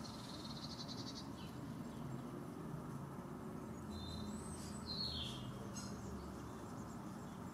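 Songbirds calling in the background of a garden: a fast high trill in the first second, then a few short chirps and a falling whistled note about four to five seconds in, over a steady low background rumble.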